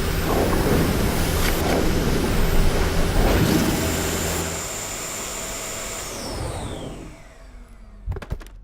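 Vacuum cleaner motor running with a steady rushing hum, then switched off about halfway through, its whine falling in pitch as it winds down. A few sharp clicks near the end.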